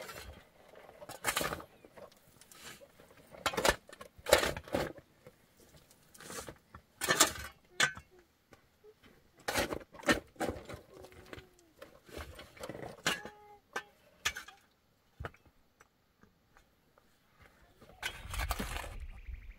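Long-handled digging tool striking stony soil, about twenty sharp blows at uneven intervals with a short pause, then a longer shovel scrape through earth and stones near the end.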